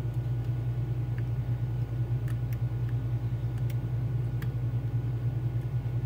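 A steady low hum, with a few faint, sharp metallic ticks from a lock pick working the pins of a Mul-T-Lock Junior cylinder held under tension.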